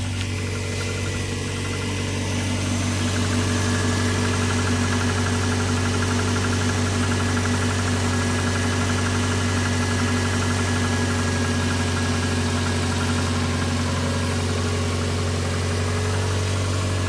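Subaru Legacy's 2.2-litre flat-four engine idling steadily with the hood open.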